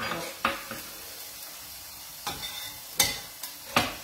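A few irregular sharp knocks of a kitchen knife on a wooden chopping board, the loudest about three seconds in and just before the end, over the faint steady sizzle of a salmon steak frying in a covered pan.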